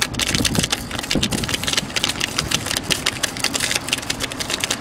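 A film-wrapped smartphone dragged on a rope over asphalt behind a moving car, scraping and clattering with dense, irregular knocks, over the car's engine and road noise.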